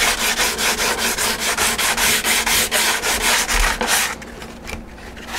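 Sandpaper rubbed by hand over cured resin on fibreglass cloth covering a balsa model airplane fuselage: quick back-and-forth sanding strokes, about four or five a second, stopping about four seconds in.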